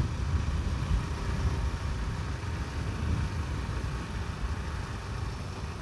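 Honda Astrea Grand underbone motorcycle under way, its small single-cylinder four-stroke engine running at a steady cruise with a continuous low rumble of wind and road noise.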